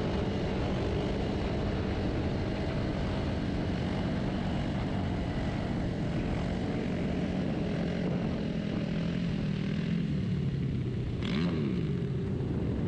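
Motorcycle engines running steadily, with a brief rise and fall in engine pitch about eleven seconds in.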